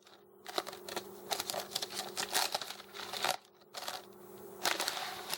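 Plastic wrapper of an Oreo cookie package crinkling as it is handled, in a string of irregular crackly bursts that stop suddenly near the end.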